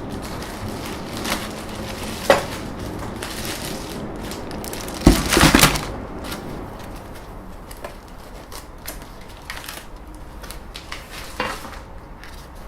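Unboxed 3D printer parts and packaging being handled and put away: rustling with scattered knocks and clatter, loudest in a short burst about five seconds in.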